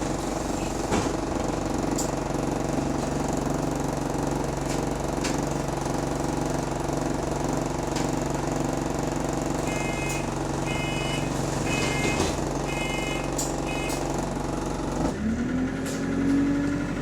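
Bus engine idling steadily, with the door buzzer sounding in a string of short beeps about ten seconds in. Near the end the engine note rises as the bus pulls away.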